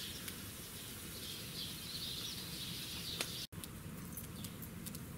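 Wood fire burning in a steel fire basket, with a few sharp crackling pops, and birds chirping in the background.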